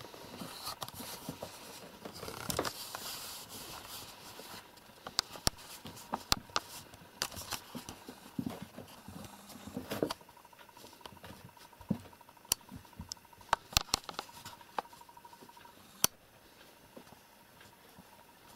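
Two kittens scrambling and play-fighting in and around felt boots on a carpet: rustling and scratching of paws and claws on felt, with many scattered sharp clicks. The scuffling is busiest in the first four or five seconds, then thins to separate clicks.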